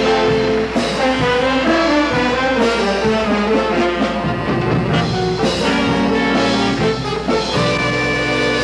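A live show band with a brass section, trumpets and trombones, playing an instrumental passage in held chords, with a new chord struck every second or two.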